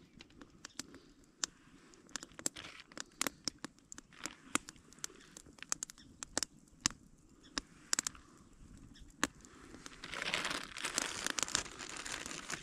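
Wood campfire crackling with sharp, irregular pops, and about ten seconds in, a plastic bag crinkling for a couple of seconds as it is handled.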